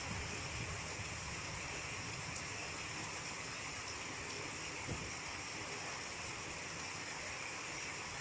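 Steady rain falling, an even hiss of many drops, with a single soft tap about five seconds in.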